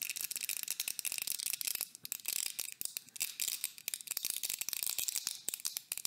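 Samsung Galaxy A54 battery adhesive crackling and tearing in a rapid, irregular run of small clicks as a plastic pry pick works under the battery. The glue has been softened with alcohol and is letting go.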